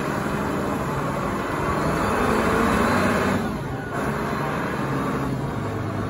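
Engine of a large Caterpillar forklift running steadily as the truck drives and turns. It grows a little louder a couple of seconds in, then eases briefly.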